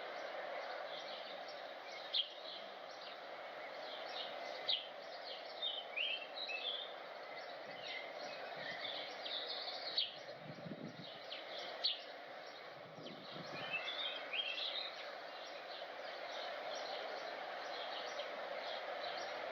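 Small birds chirping in many short calls over steady background noise, with two brief, soft low rumbles near the middle.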